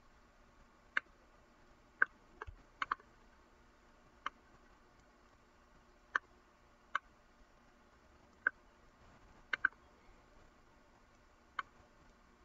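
Computer mouse button clicking: about a dozen short, sharp clicks at irregular intervals, a few of them in quick pairs.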